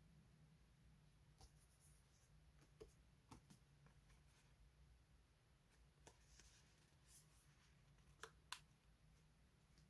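Faint paper handling: a card-stock business card and label sticker sheets being picked up, held and set down by hand, giving a few light taps and rustles, the loudest two near the end. Under it, a low steady room hum.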